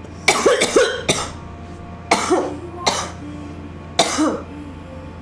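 A young woman coughing: a quick run of about four coughs in the first second, then further coughs about two, three and four seconds in. This is coughing from inhaled cannabis smoke.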